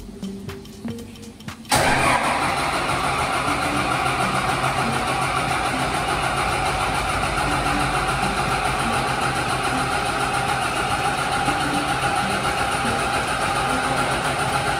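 Clarke diesel fire-pump engine cranking on its starter motor without firing. It starts suddenly about two seconds in and runs on steadily. This is one of six crank attempts in a fail-to-start test of the pump controller.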